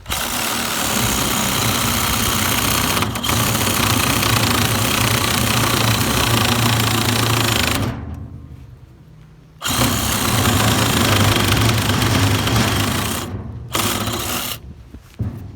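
Handheld electric power saw cutting a notch in a rough-cut lumber rafter. It starts abruptly and runs about eight seconds, winds down, then restarts for about four seconds, with two short bursts near the end.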